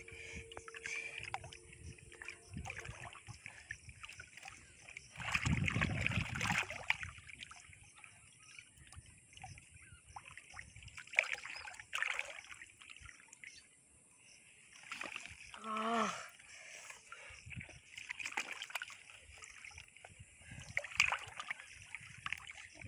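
Shallow muddy water splashing and sloshing in irregular bursts as a hand gropes for fish inside a bamboo polo fish trap pressed into the pond bottom, loudest about six seconds in. A short voice-like call about two-thirds of the way through.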